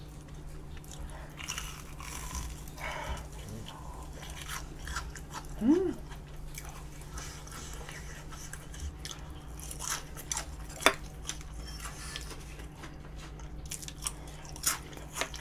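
Close-up biting and chewing of a crisp deep-fried curry croquette, with scattered crunches and crackles of the fried crust.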